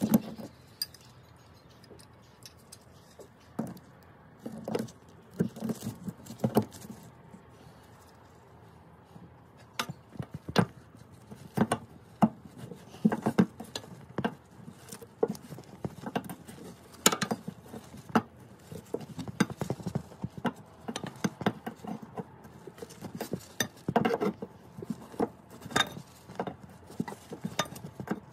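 Irregular metallic clinks, taps and knocks of a 22mm spanner working on the fuel tank hose nut, with a few louder knocks scattered through.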